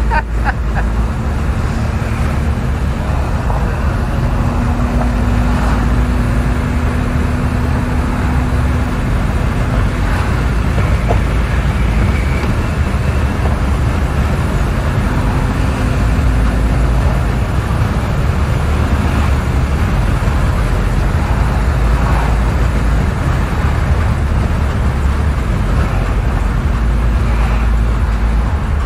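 BMW E34 sedan cruising at highway speed, heard from inside the cabin: a steady rush of tyre and wind noise over the engine's low drone.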